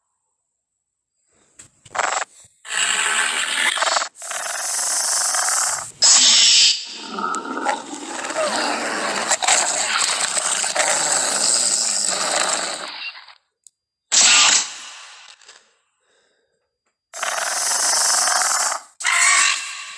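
Film velociraptor vocal sound effects: a series of raspy, hissing animal calls and growls. There are about seven separate calls with short silences between them, and the longest lasts around seven seconds in the middle.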